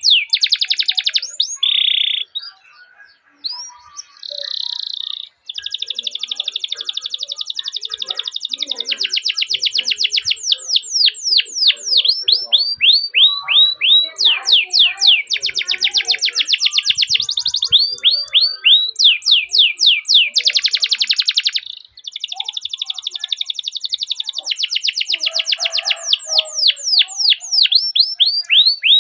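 Canary singing a long song of rapid rolled trills alternating with runs of quick, high falling chirps, with a brief lull a few seconds in.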